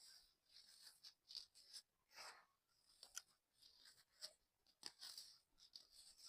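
Dry sand-cement crumbling, a quiet string of gritty crackles and crunches with a fuller crunch about two seconds in.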